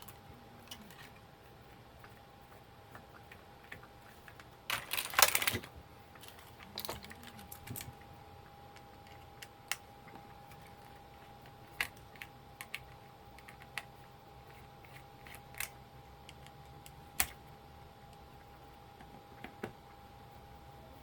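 Scattered light clicks and taps of small plastic and metal parts and a screwdriver as an old label machine is taken apart, with a louder rattling clatter about five seconds in. A faint steady hum sits underneath.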